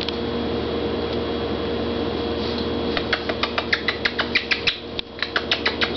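Young kittens giving quick, high-pitched squeaks, about four a second, starting about halfway through, over a steady background hum.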